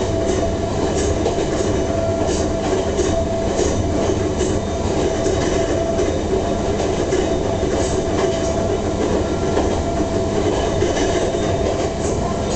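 Ohmi Railway Moha 225 electric railcar running at steady speed, heard from inside the car: a continuous rumble with a steady whine from its nose-suspended (tsurikake) traction motors and gears, and wheels clicking over rail joints now and then.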